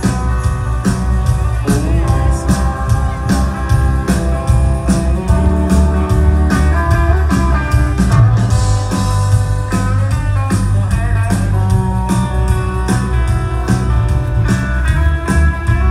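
A band playing a rock song with guitar over a steady drum beat.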